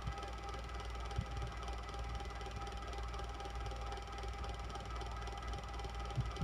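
Electric fan running steadily: a low hum and an even whir with a faint steady tone, and a couple of soft low knocks.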